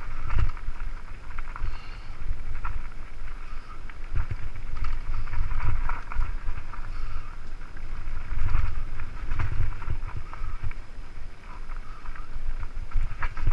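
Mountain bike descending a rough dirt singletrack: tyres crunching over gravel and the bike rattling with each bump, under wind rumble on the microphone.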